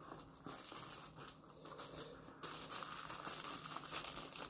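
A hand rummaging inside a cardboard mystery box, crinkling the packing material. The rustling grows denser and louder a little past halfway.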